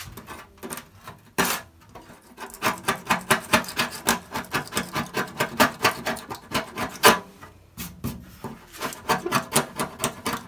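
Small metal scraper blade scraping softened layers of old paint off a steel deck lid. It goes in runs of quick, rasping strokes, several a second, with a short pause a little past the middle.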